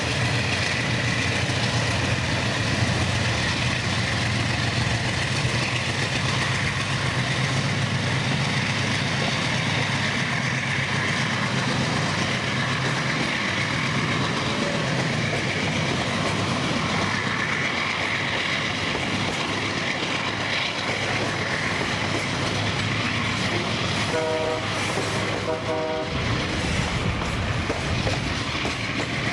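Diesel-hauled freight train running past, with a steady engine hum under the noise of the wagons rolling on the rails. Two short horn toots come near the end.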